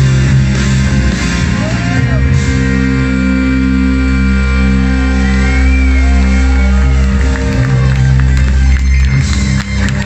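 Live rock band with electric guitars, bass and keyboards holding long, steady low notes as a song draws to its close, with shouts from the audience over it.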